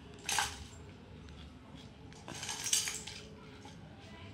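Short clinks and scrapes of small utensils and water apples against a little tin pail and the tile floor, a few scattered bursts with the loudest about two and a half seconds in.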